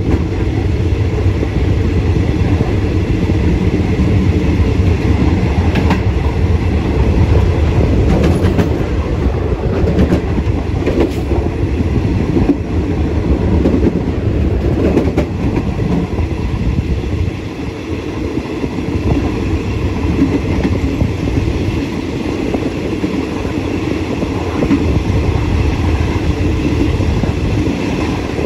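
Passenger train running along the track, heard from the rear of the last carriage: a steady low rumble of wheels on rails with carriage rattle. A few sharp clicks come about eight to eleven seconds in.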